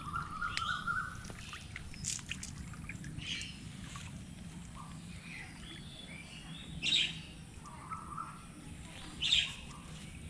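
Birds chirping and calling in short, separate calls every second or two, over a steady low background rumble.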